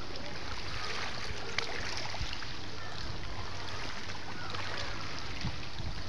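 Shoreline ambience: calm seawater lapping among rocks under an even rushing hiss, with a few faint small splashes.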